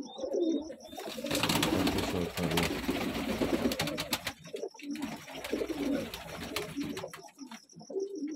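Domestic pigeons cooing repeatedly in the loft, with a loud rustling of handled feathers from about a second in to about four seconds in as a pigeon's wing is spread out by hand.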